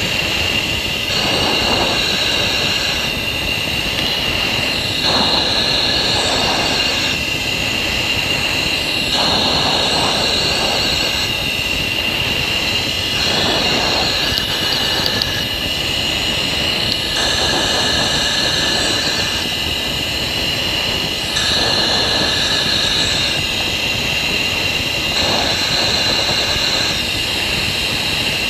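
Steady F-16 cockpit noise: engine and air rush with a constant high whine. Over it, the pilot's breathing through the oxygen mask regulator rises and falls about every four seconds.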